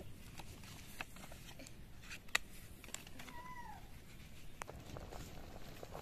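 A cat gives one short meow, rising then falling in pitch, about three seconds in. Scattered light clicks and leaf rustling come from fresh leaves being handled, with one sharp click a little after two seconds.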